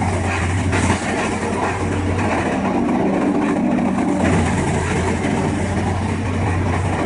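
Morbark 1300 tub grinder running: a steady heavy diesel drone under dense grinding noise as it reduces wood to mulch, with a brief louder knock about a second in.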